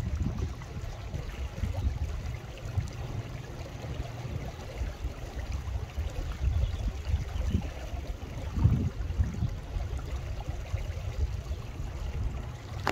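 Wind buffeting the microphone: an uneven low rumble that rises and falls with the gusts.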